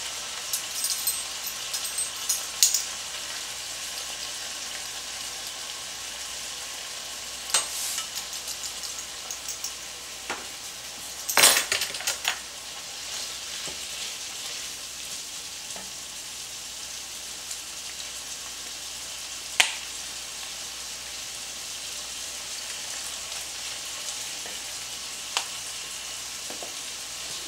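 Ground beef sizzling steadily as it browns in a skillet. A pepper mill grinds briefly at the start, and a wooden spoon knocks and scrapes against the pan now and then, loudest about halfway through.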